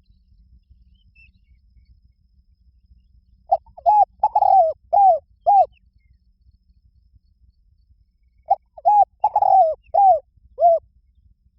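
Spotted dove cooing: two phrases of about five short arched coos each, one about a third of the way in and the other near the end.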